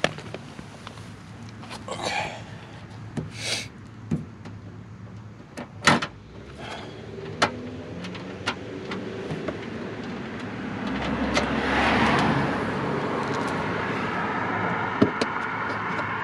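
Scattered sharp clicks and knocks of small hardware being handled. From about seven seconds in, a vehicle's engine noise builds, loudest around twelve seconds, then carries on steadily.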